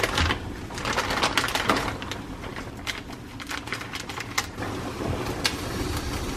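Plastic noodle packets crinkling and being snipped open with scissors: a quick, irregular run of sharp crackles and clicks. From about two-thirds of the way in, the crackles thin out and a steadier, lower noise takes over.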